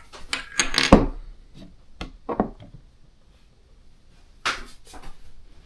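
Plastic Lego pieces clicking and knocking as the models are handled: a quick cluster of clicks in the first second, then a few scattered knocks with quiet gaps between.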